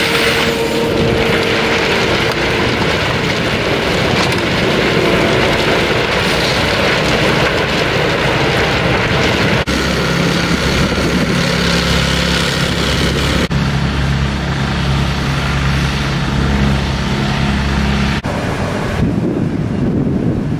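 A Bobcat compact track loader running as it pushes track ballast. About ten seconds in, this gives way to a reversible vibratory plate compactor's engine, a steady low drone as it packs the ballast. Near the end there is wind on the microphone.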